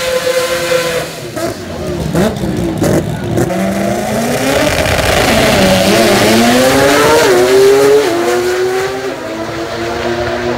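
Sport-compact drag cars' engines revving hard at the start line, with sharp pops, then launching and accelerating flat out. The pitch rises in steps as the gears change, and the sound eases off as the cars pull away down the strip.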